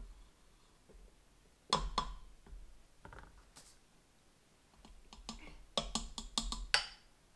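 A measuring spoon knocked against the rim of a stainless steel mixer bowl, a quick run of sharp clicks near the end. There is a single knock about two seconds in.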